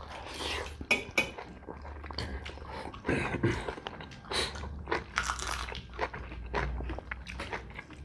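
Close-miked chewing and lip-smacking of people eating rice and fish curry by hand: irregular wet smacks and small crunches, with fingers squishing through the rice.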